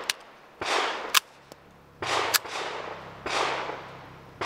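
Sig P320 9mm pistol firing four shots, each a little over a second apart, with sharp clicks between them.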